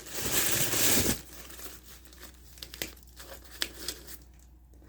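Fruit wrappers and packaging crinkling loudly for about a second as the fruit is handled, then faint scattered rustles and light ticks.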